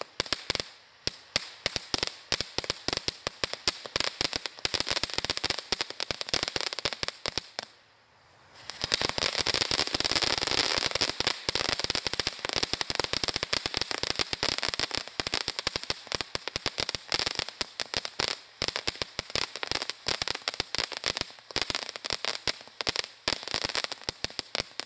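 Black Cat Fountastic ground fountain firework burning, its crackling stars giving dense, rapid crackles. The crackling drops out briefly about a third of the way in, then comes back as a louder, steady rushing spray thick with crackle. That fades back to scattered crackling, which stops at the end as the fountain burns out.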